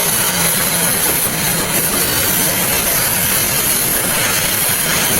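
Steady engine-like running noise with a strong hiss on top, unbroken throughout.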